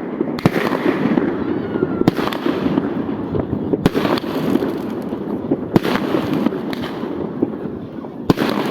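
Fireworks going off: a dense, continuous crackle with a sharp bang about every one and a half to two seconds, typical of aerial shells bursting.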